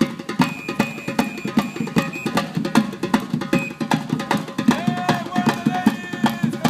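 Live drumming by several drummers: a fast, dense, steady beat of sharp drum strikes.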